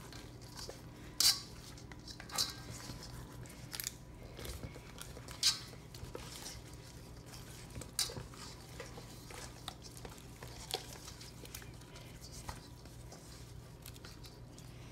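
Gloved hands working whole branzino in a marinade inside a stainless steel mixing bowl: quiet handling with sharp knocks and clicks of the fish and hands against the metal bowl, about half a dozen of them in the first eight seconds. A faint steady hum underneath.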